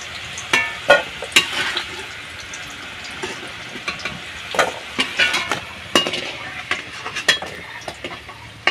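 Potatoes sizzling in hot oil in an aluminium kadai as they are lifted out with a metal slotted spoon, with a steady hiss and several sharp clinks of the spoon against the pans.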